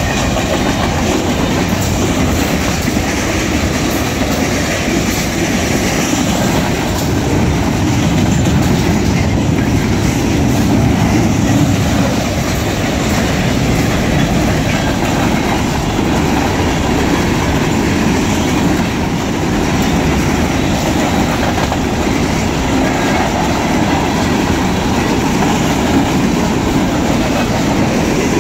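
Freight cars of a passing mixed freight train rolling by at close range: a loud, steady running noise of steel wheels on the rails.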